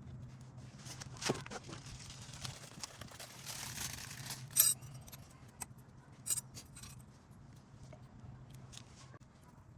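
Small metal brake parts (pads, clips, hardware) being handled: clinking, scraping and a few sharp clicks, the loudest about four and a half seconds in, with a rustling hiss over the first few seconds and a faint steady hum underneath.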